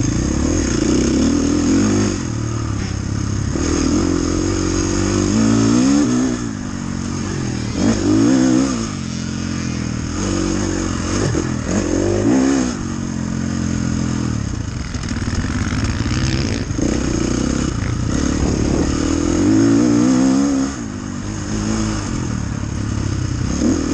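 Dirt bike engine heard from the rider's seat, revving up and falling back repeatedly as the bike is ridden hard along a muddy, rutted track, its pitch climbing and dropping every few seconds.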